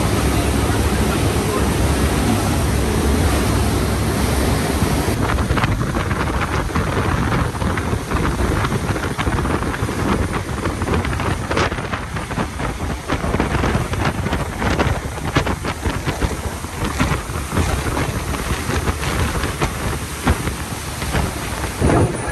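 Wind buffeting the microphone over the rush of a cruise boat's churning wake. A heavy low rumble fills the first five seconds or so, then eases, and the buffeting turns gusty.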